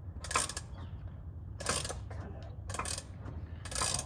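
Metal clinks and scrapes in four short bursts about a second apart, from an oil filter being turned off by hand with a filter wrench still stuck on it.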